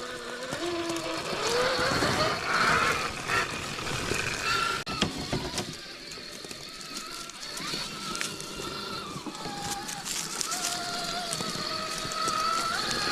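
Axial SCX6 Honcho RC crawler's electric motor and drivetrain whining, the pitch rising and falling as the throttle changes, with scattered clicks and knocks as it crawls over rocks.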